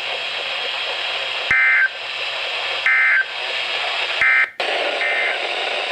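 NOAA Weather Radio SAME end-of-message data bursts over steady radio hiss. There are three short, loud two-tone digital chirps about a second and a half apart, marking the end of an alert broadcast. The audio drops out briefly after the third, and a fainter fourth burst follows.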